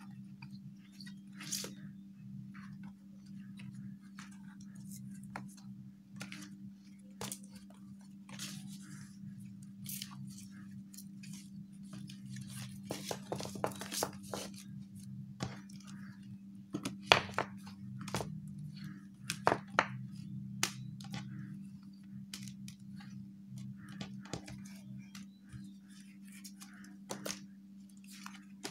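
Paper sheets and a clear plastic sheet rustling and crinkling as they are handled and sorted, with scattered taps and slides and a cluster of sharper crackles in the middle, over a steady low hum.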